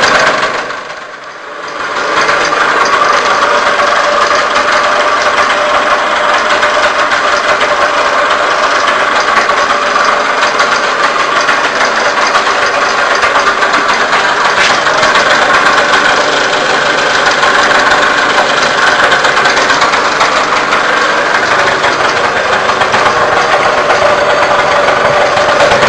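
Victoria Vicky IV moped's small single-cylinder two-stroke engine idling steadily. The sound dips briefly about a second in, then runs on evenly.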